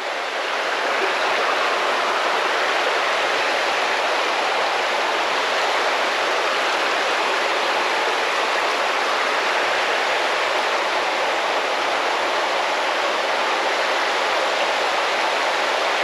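Small waterfall and its stream running steadily: an even, unbroken rush of water.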